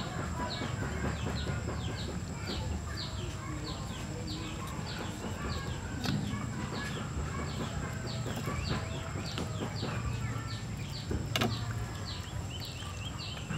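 Large knife scraping and cutting a whole catfish on a wooden chopping block: scattered scrapes and clicks with a sharp knock about eleven seconds in. Behind it a bird repeats a short falling chirp two or three times a second.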